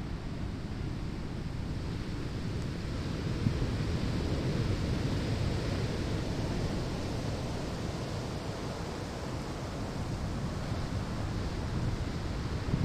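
Ocean waves breaking and washing up a sandy shore, a continuous rushing surf that swells and eases over several seconds.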